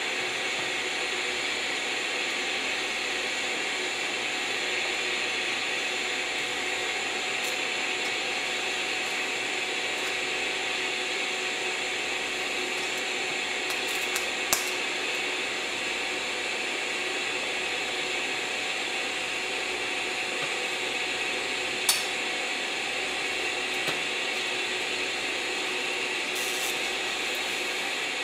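DC TIG welding arc from a scratch-start torch run off a small stick welder, burning steadily with an even hiss and a faint hum as the cup is walked along a mild-steel joint. Two sharp clicks, about halfway through and again about three-quarters through.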